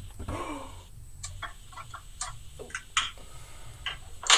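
Light, irregular clicks and taps, about a dozen over three seconds, after a brief murmur of a voice at the start.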